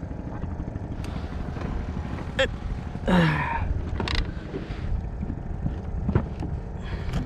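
Small fishing boat's engine running with a steady low rumble, with a few short knocks on the boat.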